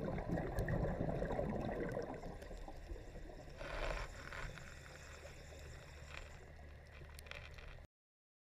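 Underwater gurgling of a scuba diver's exhaled bubbles: a long burst at the start and a shorter one about three and a half seconds in, over a steady low hum. The sound cuts off suddenly near the end.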